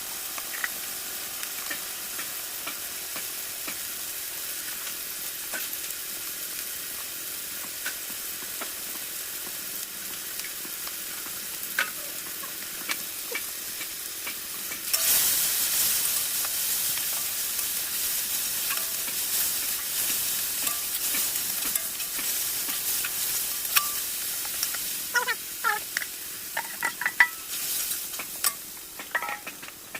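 Chickpeas frying and sizzling in a pan while being stirred, with occasional scrapes and clicks of the spoon. About halfway the sizzle jumps suddenly louder, and near the end the spoon clinks against the metal pan several times.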